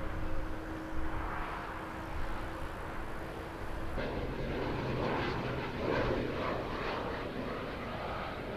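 Jet airliner engines on the runway after landing, a steady hum with a thin steady tone. About four seconds in, it switches abruptly to the louder, fuller drone of a high-wing twin-engine turboprop flying overhead.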